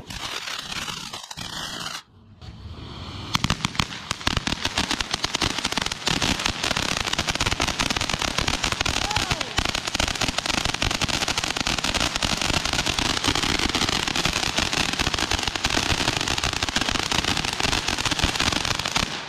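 Ground fountain firework spraying sparks, with a dense, rapid crackle that sets in a few seconds in and carries on steadily.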